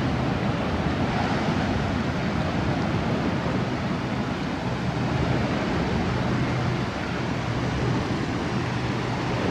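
Sea surf washing and breaking against a rocky shoreline, a steady rushing of water, with wind over the microphone.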